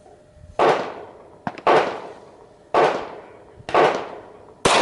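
Five pistol shots from a Glock 40 Gen 4 MOS in 10mm, fired about one a second, each with a short echo trailing off.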